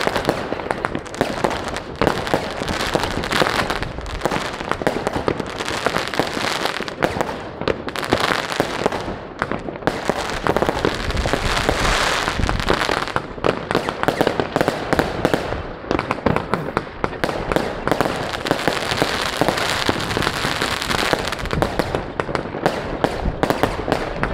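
Many fireworks and firecrackers going off at once across a town, a dense, continuous crackle of overlapping bangs and pops.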